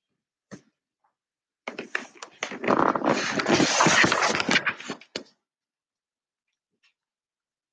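A dog moving about right against the microphone: a short tap, then about three and a half seconds of loud rustling and scraping.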